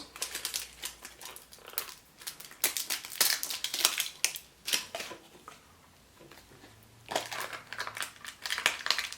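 Wrapper of a Chupa Chups surprise egg crinkling and crackling as it is handled and torn open, in busy bursts with a short lull around six seconds in.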